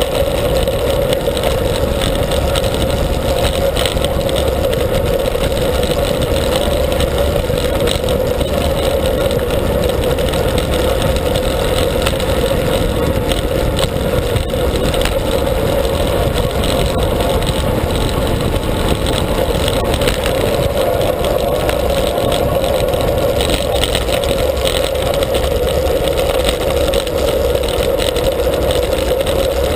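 Steady wind rush on the microphone of a handlebar-mounted action camera on a road bike moving at speed.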